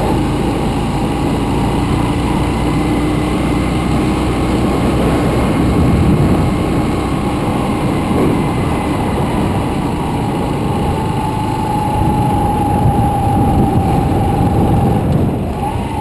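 Small motorbike engine running steadily under way, with rumbling wind and road noise. The engine note swells slightly a few times.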